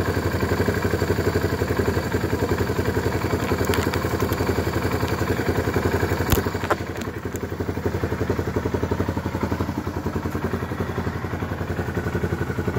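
Yamaha BW200ES big-wheel motorcycle's single-cylinder four-stroke engine idling steadily. A little past halfway there are two sharp knocks as the camera is handled, and after that the engine sounds a bit quieter.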